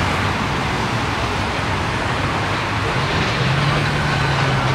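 Steady vehicle noise: a continuous wash of road or traffic noise over a low engine hum.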